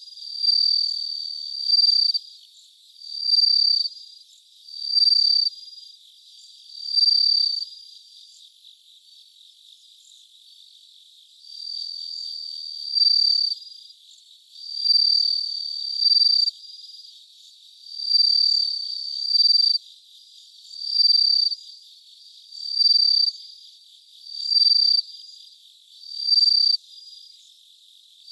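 Japanese bell cricket (suzumushi) singing: high, ringing chirps about a second long, repeated roughly every two seconds, with a pause of a few seconds about a third of the way in.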